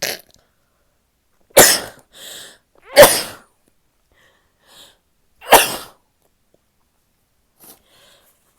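A woman sneezing three times in quick succession, each one a sharp loud burst a second or two apart, with a softer sound at the very start and fainter breaths between them.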